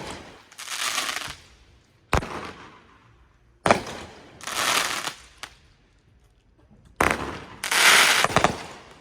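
Fireworks going off: a string of sharp bangs, each followed about half a second later by a second or so of hissing crackle.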